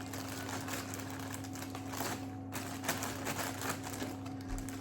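Light clicks, taps and rustles of hands handling kitchen items and packaging on a counter, over a steady low hum.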